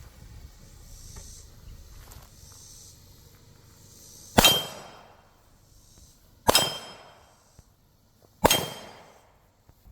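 Three pistol shots fired about two seconds apart from a Glock 19 Gen 5 9mm, each a sharp bang with a short echoing tail.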